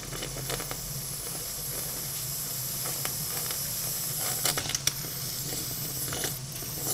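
Steam hissing steadily from a small model guillotine steam engine as steam is first let into it, with a few light clicks about four and a half seconds and six seconds in.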